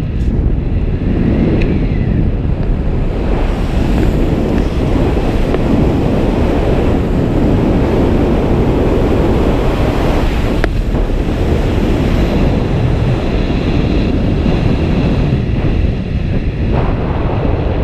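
Wind buffeting the camera's microphone as the skydiver descends under a parachute canopy, making a loud, steady rush. There is a brief click about ten and a half seconds in.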